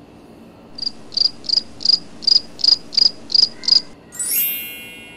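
Cricket chirping, nine even chirps at about three a second, starting and stopping abruptly like an added sound effect, followed about four seconds in by a bright shimmering chime sweep that rings and fades.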